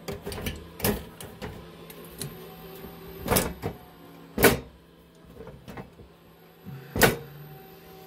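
Four loud sharp clacks and some smaller clicks as the top cover and its cover-release latch on an HPE ProLiant DL380 Gen9 server are handled. Under them is the steady hum of the server running.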